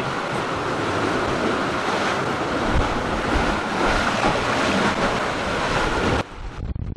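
Water rushing and churning past the hulls of a sailing catamaran making good speed, mixed with wind buffeting the microphone. The sound cuts off abruptly about six seconds in.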